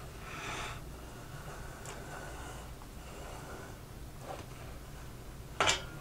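Faint scratching of a pen drawing a line along a steel marking rule on a cherry board, then a short sharp clack near the end.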